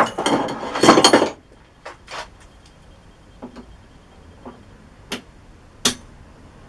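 Metal parts and tools being handled at a lathe: about a second of loud metallic clattering with a ringing edge at the start, then a few sharp separate clinks and knocks spread through the rest.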